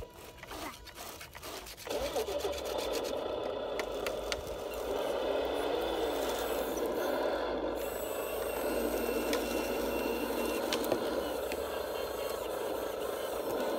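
Radio-controlled Caterpillar D10T model bulldozer running, its drive motors and gearboxes whirring steadily as the tracks move it through sand and the blade pushes sand. A few clicks come first, then the steady running sets in about two seconds in.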